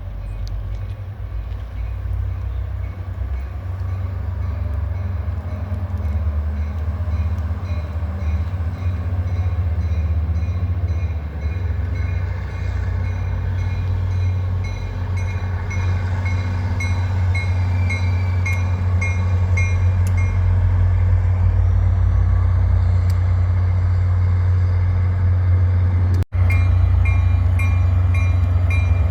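New Jersey Transit Atlantic City Line train approaching, its rumble growing steadily louder, with a railroad crossing bell ringing in a quick even beat and heavy wind buffeting the microphone. The sound cuts out for an instant near the end.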